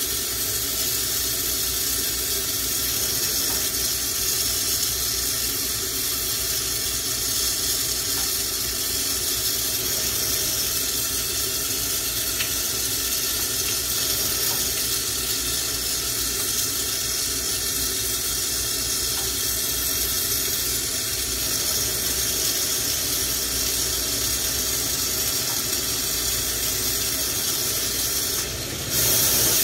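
Lampworking bench torch burning with a steady hiss. Near the end the hiss dips briefly, then comes back louder.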